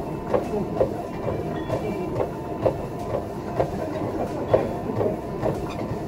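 Gym cardio machine clattering in a steady rhythm with each step, about two steps a second, over a continuous mechanical rumble.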